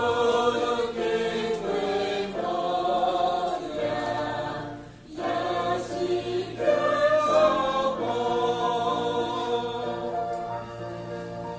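Small mixed choir of men and women singing a Christian hymn, accompanied by an electronic keyboard, with a short break between phrases about five seconds in.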